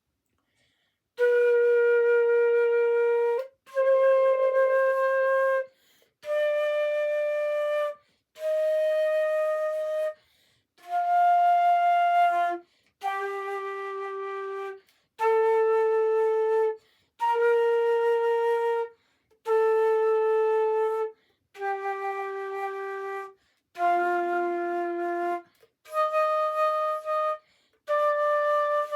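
Flute playing a slow scale: single notes held about two seconds each, with a short break between each note.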